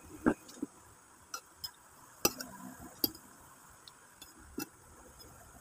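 Metal spoons clinking and tapping against a ceramic plate while food is scooped up: a scatter of about seven sharp clinks, three of them much louder than the rest.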